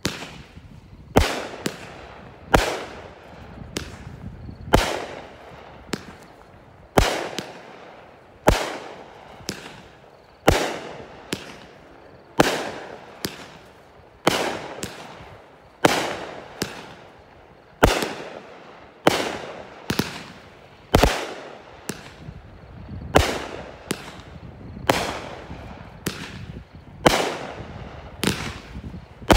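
Mad Ox 'Reaper Drone' multi-shot fireworks cake firing a long string of shots, roughly one a second, each sharp report followed by a fading crackle.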